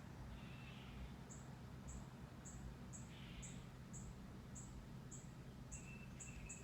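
Faint bird chirps: short, high, thin notes repeating about twice a second, with a few softer lower notes and a brief held whistle near the end.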